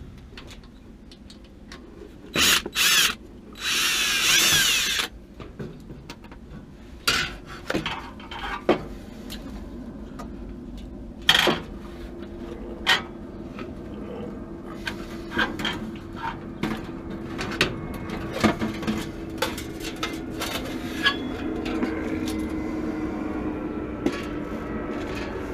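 Cordless drill/driver backing out the screws of a gas water heater's combustion chamber access cover: two short runs, then a longer run with a wavering pitch about four seconds in. Scattered metallic clicks and knocks follow as the cover and burner assembly are handled, with a faint steady hum in the second half.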